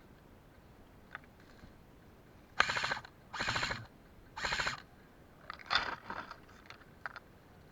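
Airsoft electric gun firing three short full-auto bursts, each a quick rattle of shots, starting about two and a half seconds in, then a few shorter bursts and single clicks.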